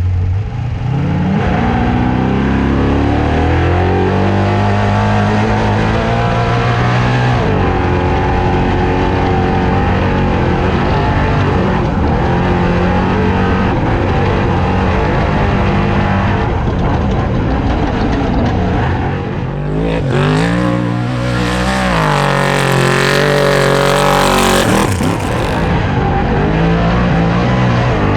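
Off-road race car's engine at full throttle, its pitch climbing and dropping again and again through gear changes. About two-thirds of the way through, a loud rushing noise joins it for about five seconds.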